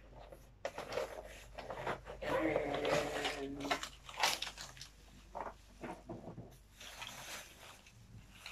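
Plastic wrapping crinkling and cardboard rustling as a plastic-bagged ring light is pulled out of its box and handled, with small irregular knocks; the handling is busiest about two to four seconds in.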